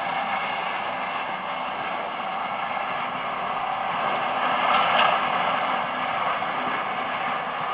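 Horse-drawn mower running as the team pulls it: a steady mechanical whir and clatter from its drive and cutter, swelling briefly about five seconds in.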